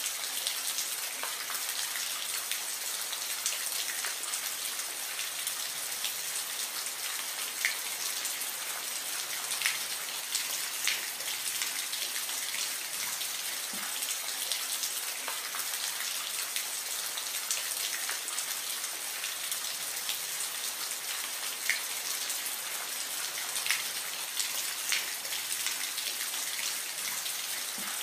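Steady rain falling, an even hiss with scattered individual drops ticking close by.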